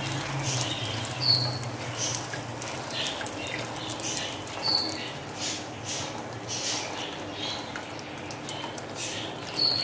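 Gol gappay puris deep-frying in hot oil in an aluminium pot, a steady sizzle with scattered crackling as hot oil is spooned over them with a metal spoon. Three short high squeaks stand out, about a second in, near the middle and near the end.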